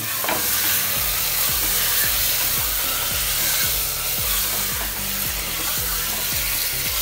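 Minced meat sizzling in hot oil and spice masala in a pressure cooker on high flame, stirred with a wooden spatula that scrapes and rubs against the pot.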